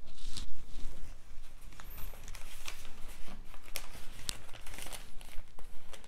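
Handling noise: crinkling and rustling broken by many sharp little clicks and taps.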